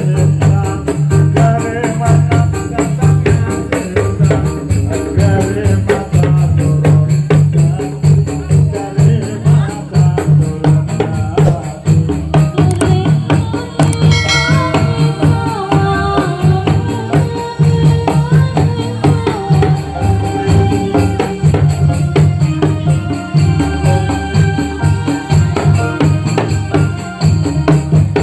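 Dolalak music: drums and jingling tambourine-like percussion keep a fast, even beat, with a melody line running over it and no break.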